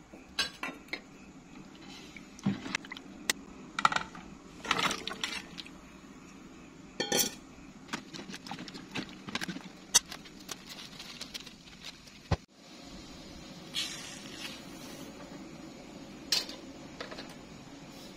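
Irregular clinks and knocks of a utensil against an aluminium cooking pot, over a steady low background. The sound cuts out briefly about two-thirds of the way through.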